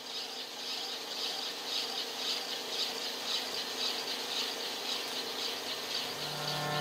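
Insects chirping in a steady pulsing rhythm of about three pulses a second, over a faint steady hum. Low music swells in near the end.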